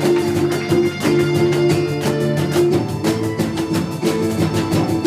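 Live Mexican music from a small band: plucked and strummed string instruments with percussion, played to a quick steady beat.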